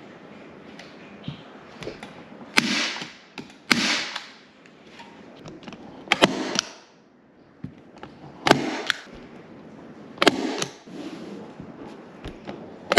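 Hand staple gun firing staples through faux leather upholstery into a wooden frame: about six sharp snaps at irregular intervals, two of them in quick succession near the end, each followed by a short rustle.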